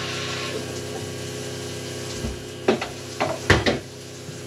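Electric bilge pump motor humming steadily, running but not pumping any water, which the owners put down to an airlock. A few loud knocks and clatters come in the second half.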